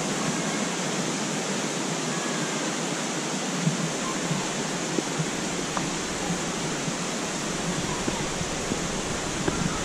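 Steady rushing of a stream, an even hiss of water, with a few light footsteps on rocks.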